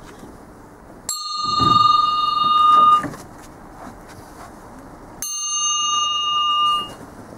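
A bell on a procession float rung twice, each ring a steady high tone lasting about two seconds and cut off short. This is the usual signal to the float's bearers.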